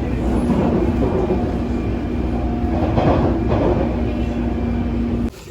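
Train running: a steady rumble with a low, even hum, cutting off suddenly near the end.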